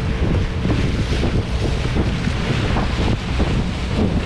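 A boat motor running under way, with heavy wind buffeting the microphone and water rushing past the hull.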